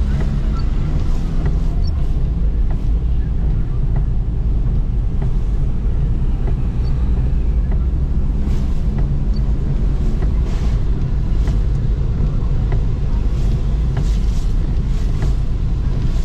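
Steady low rumble of wind buffeting the microphone over street traffic noise, with faint scattered clicks.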